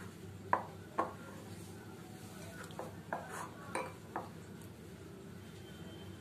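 Faint, sharp clinks against a glass mixing bowl as flour and ghee are rubbed together by hand, about eight in all: two near the start, then a quick run of several in the middle.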